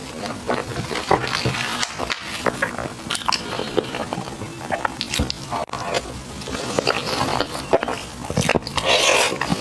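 Close-miked chewing and biting of sticky glutinous rice food: a steady run of wet, smacking mouth clicks and squishes with the odd crunch.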